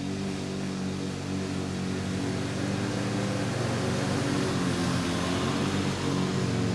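Lawn-Boy 10520 self-propelled mower's two-stroke F-engine running steadily under load, cutting thick, damp grass. It grows louder from about two seconds in as the mower comes closer.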